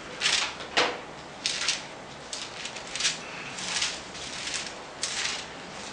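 Bible pages being leafed through: a quick papery rustle about every half second to a second, some eight in all, as the pages are turned in search of a verse.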